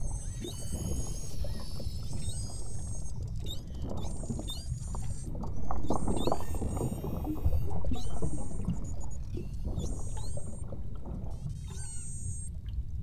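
Beluga whales calling underwater: a chorus of high whistles and chirps, some sweeping upward, mixed with rapid clicking. The clicking is heaviest twice around the middle, the loudest moments. All of it sits over a steady low underwater rumble.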